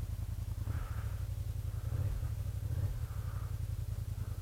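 Kymco AK550 maxi-scooter's parallel-twin engine running at low revs, a steady low, quickly pulsing rumble.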